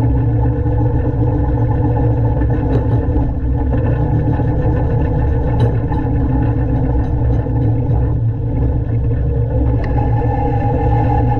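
1970s Poclain LC80 excavator's diesel engine running steadily, with a few faint clicks over it.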